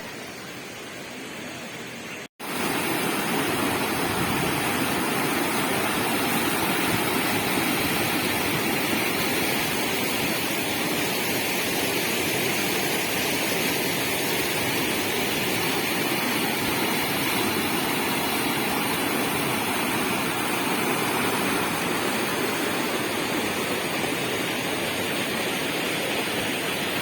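Steady rush of fast-flowing floodwater. It is quieter for the first two seconds, breaks off briefly, then comes back louder.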